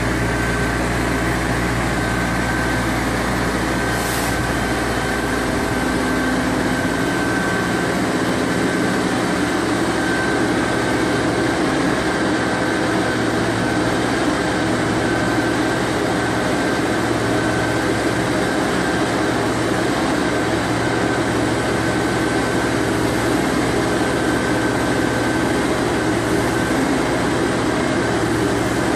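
Colmar T2400 road-rail excavator running steadily, its diesel engine and hydraulics working as the boom and attachment move.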